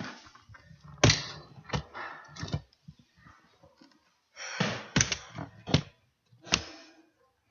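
Irregular knocks and thumps close to the microphone, with brief rubbing noise between them, as the camera is handled and moved.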